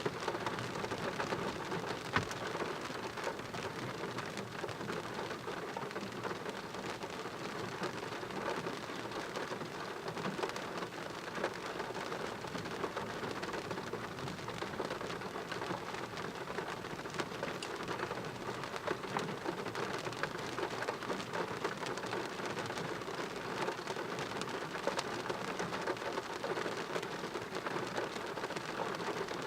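Heavy thunderstorm rain falling steadily, a dense hiss of drops hitting surfaces, with a sharp tick about two seconds in.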